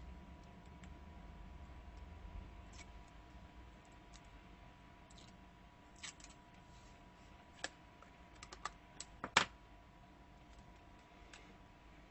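Scattered small clicks and ticks of heat-resistant tape being handled and pressed onto a phone's circuit board around the charging port. The clicks cluster into a quick run of sharper ticks about three-quarters of the way in, over a faint steady hum.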